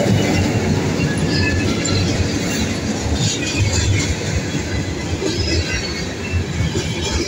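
Freight train passing close by: the second leased EMD diesel locomotive goes past, then covered hopper cars roll by with a steady rumble of steel wheels on the rails and a faint high wheel squeal.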